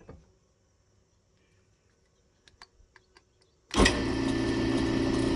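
A few light clicks, then about three and a half seconds in a drill press's electric motor switches on abruptly and runs steadily with a hum and whir.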